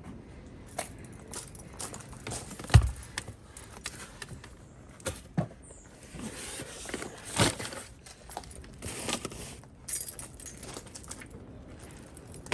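Handling noise: scattered clicks, knocks and rustling, with one heavy thump about three seconds in.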